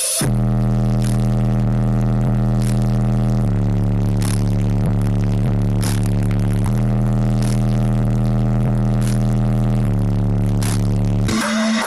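Car audio system playing a bass-heavy section of music inside the cabin: deep, held bass notes over a constant sub-bass tone, the bass note changing about every three seconds, with faint high percussion ticks on top.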